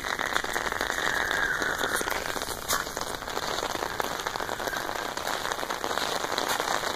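Steady rain falling, heard as a dense hiss of fine drop ticks with a few louder hits.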